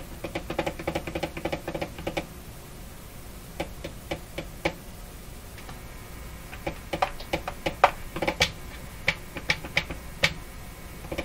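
Hallicrafters S-40A shortwave receiver putting out crackling static: sharp clicks, a rapid run in the first two seconds and a scattered string later, over a low steady hum. A faint high steady tone comes in about halfway through.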